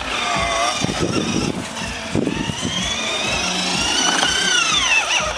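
Electric motor of a Lunch Box remote-control car whining as it speeds up and slows down, its pitch rising and falling several times, with a few knocks from the car running over the ground.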